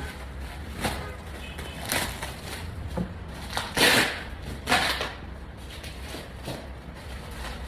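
Packaging being handled during an unboxing: a series of short scrapes and knocks about once a second, the loudest two coming around four and five seconds in.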